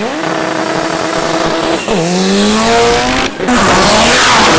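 A drag-racing car's engine at full throttle. Its pitch drops sharply at a gear change about two seconds in and climbs again. Near the end, a louder, rougher roar of engine and tyre noise takes over.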